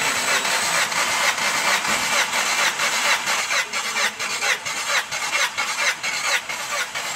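Skoda Superb petrol engine cranking on its starter motor without firing, an even rhythmic chugging, for a compression test with a gauge screwed into a spark-plug hole.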